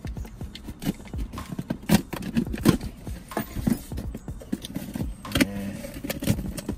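A set of keys jangling and scraping as a key slits the tape on a cardboard shipping box, with irregular sharp clicks and scratches of the packaging being worked open.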